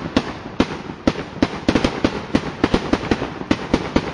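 Consumer fireworks going off in rapid succession: sharp bangs and pops at about three to four a second, irregularly spaced, over a continuous crackling background.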